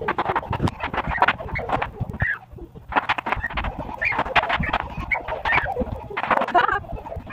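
Bubble wrap popping and crackling in quick, irregular snaps, mixed with bare feet slapping the wooden floor, as toddlers run across and around the sheet.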